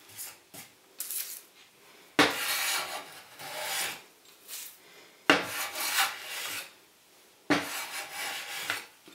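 Metal smoothing plane pushed in strokes across the edge of a wooden frame, set to take very fine shavings: a short stroke about a second in, then three longer hissing cuts, each starting sharply and lasting a second or so.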